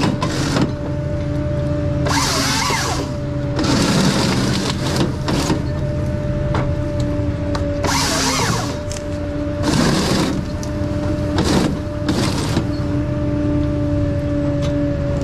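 Ponsse Scorpion King forest harvester at work: the machine runs with a steady whining tone over a low drone, broken by several loud bursts of noise as the harvester head works through timber.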